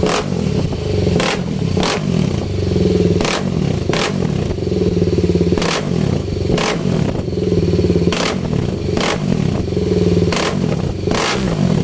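BMW motorcycle engine running and being revved up and down again and again, with sharp cracks about ten times.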